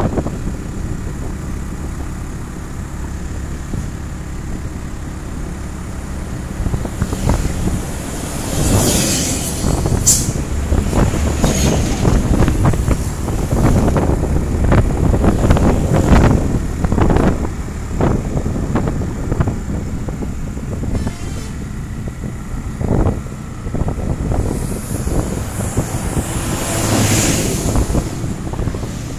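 A vehicle's engine running steadily while driving along a road, with road noise. Other traffic passes now and then, with swells of passing vehicles at about nine seconds and near the end.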